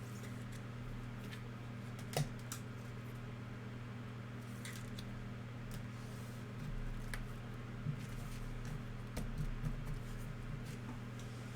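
Trading cards and foil pack wrappers being handled: scattered light clicks and rustles, with a sharper click about two seconds in and a run of small clicks near the end, over a steady low hum.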